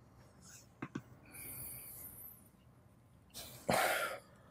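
A man's single short, breathy cough-like exhalation about three and a half seconds in, after a soft click and a faint hiss.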